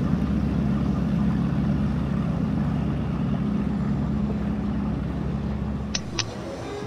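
Motorboat engine running at a steady speed, its hum dropping away about six seconds in, followed by two sharp clicks in quick succession.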